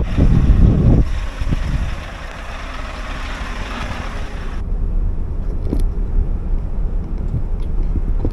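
Scania R520 V8 timber truck driving at road speed under a full log load: wind and tyre noise over a low engine rumble, heard from outside the rig. About four and a half seconds in the hiss drops away suddenly, leaving the duller engine hum heard inside the cab.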